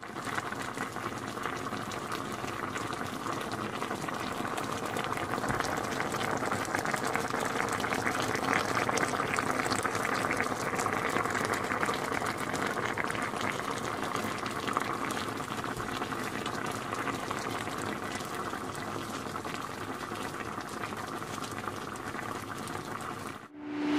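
Cooking liquid boiling steadily, a dense bubbling crackle that cuts off suddenly near the end.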